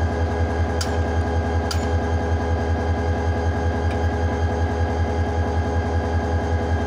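Diesel locomotive engine idling, with a steady low throb pulsing several times a second. A few faint clicks come in the first two seconds.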